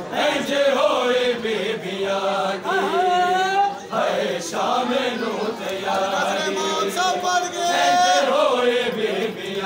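Men's voices chanting a noha, a Shia mourning lament, with long held notes that slide in pitch.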